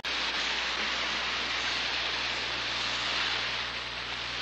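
Overhead sprinklers spraying water in a steady hiss, like heavy rain, which starts abruptly and eases a little near the end.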